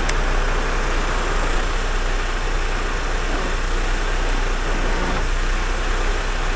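Mercedes timber truck's diesel engine idling steadily, a constant low drone with no change in speed.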